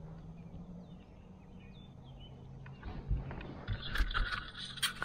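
Quiet open-air ambience with a few faint chirps, then from about three seconds in, low bumps, knocks and rattling of gear being handled aboard a kayak, ending in a few sharp clicks.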